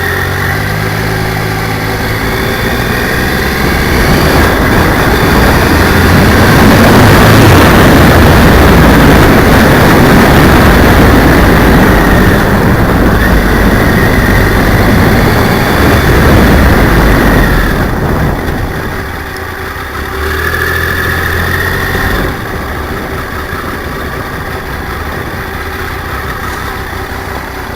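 Motorcycle engine and rushing wind on a cheap camera's microphone strapped to the brake cylinder, recorded harsh and distorted. The noise swells for much of the time, then drops about two-thirds of the way through to a quieter, steady engine sound.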